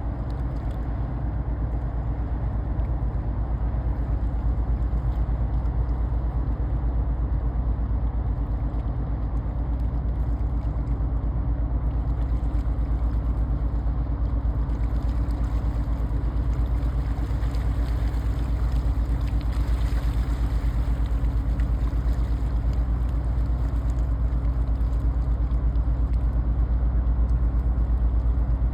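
Low, steady rumble of a passing ship's diesel engine, with even low tones and a gradual rise in loudness as the vessel draws nearer.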